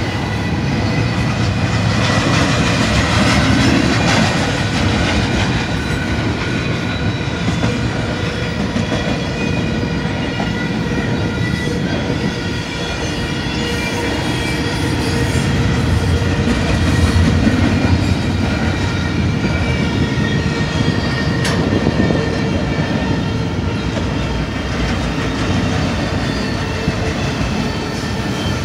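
Double-stack container well cars of a freight train rolling steadily past: wheels rumbling and clacking over the rails, with a steady high whine above the rumble.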